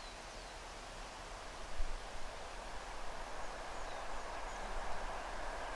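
Distant TEP70 diesel locomotive with a passenger train approaching: a low, even running noise that grows steadily louder. There is a dull bump about two seconds in, and a few short, downward-sliding bird chirps.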